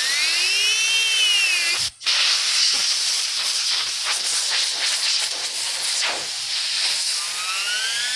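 Fidget spinner with a WD-40-sprayed bearing spinning at high speed: a loud, steady hissing whir. A whine on top of it rises and falls in pitch, once near the start and again near the end.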